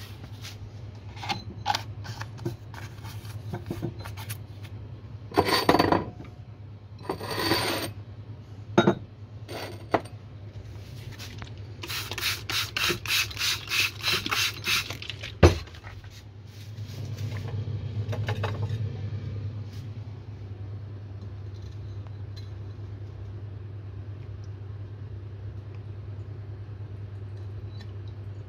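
A trigger spray bottle squirting water about eight times in quick succession, about three squirts a second, wetting the filter paper in a porcelain Büchner funnel. Scattered clicks and knocks of glassware and two short rushes of noise come before it, with a sharp knock just after. A steady low hum runs underneath.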